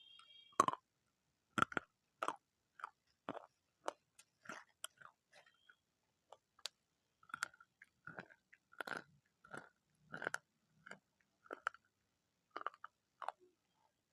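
Close-miked crunchy chewing: a person biting and chewing crisp food, with a sharp crunch roughly every half second to a second.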